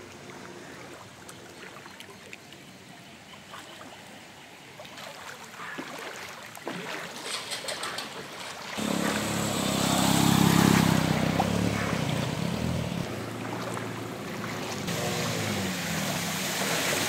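Motorcycles riding through shallow floodwater: water swishing and lapping, with a motorcycle engine running that comes in much louder about nine seconds in.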